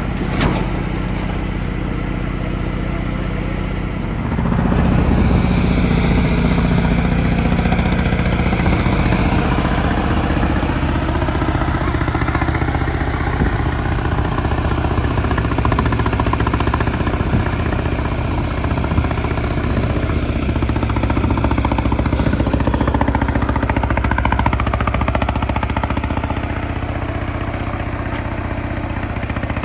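Detroit Diesel 6V92TA two-stroke V6 diesel running steadily; about four seconds in it picks up and runs louder, then holds there.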